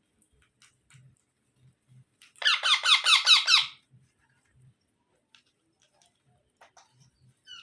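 Indian ringneck parrot chick giving a quick run of about ten squeaky calls, each sliding down in pitch, lasting about a second and a half from about two seconds in.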